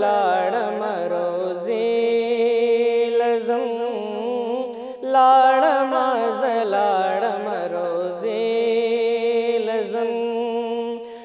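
A male voice singing a Pashto naat in long, melismatic held notes over a steady drone, with a new phrase starting about five seconds in.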